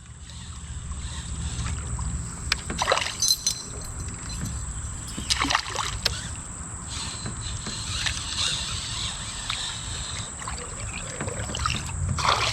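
A fishing boat on the water: a steady low rumble with scattered knocks and clatters of gear against the hull.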